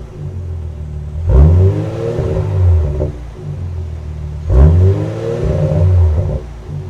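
Ineos Grenadier's engine through a Milltek Sport stainless steel performance exhaust, idling and revved twice about three seconds apart. Each rev rises sharply and drops back to a steady idle.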